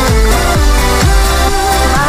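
Dance music with a steady kick-drum beat about twice a second under held notes.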